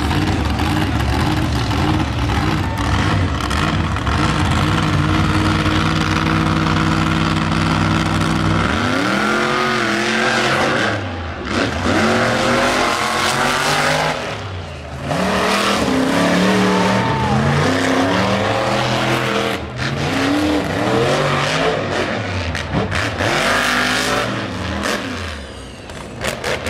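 Monster truck engine running steadily, then revving up and down over and over from about nine seconds in, with brief drops in between.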